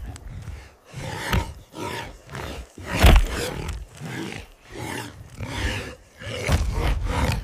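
Wild boar growling and grunting in a string of short, rough calls, with a heavy thud about three seconds in.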